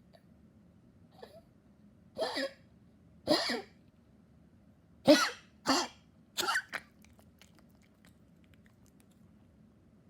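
Dog coughing in about five short coughs: two about a second apart, then a tighter run of three. This is part of the non-stop coughing of a dog that has grown weak.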